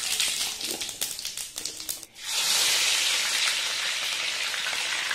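Whole spices crackling in hot oil in an aluminium kadai, sharp pops over a sizzle. About two seconds in, after a brief dip, a louder steady frying hiss takes over.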